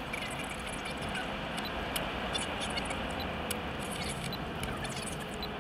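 Steady road and engine noise heard inside a moving vehicle, with light clicks and ticks scattered through it.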